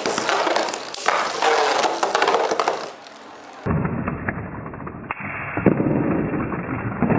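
Two metal Beyblade spinning tops, Lightning L-Drago and Meteo L-Drago, spinning and clashing in a plastic stadium: rapid clacks and scraping as they hit each other and grind along the bowl. About three and a half seconds in, the sound turns suddenly duller and muffled, with a low hum under the clicks.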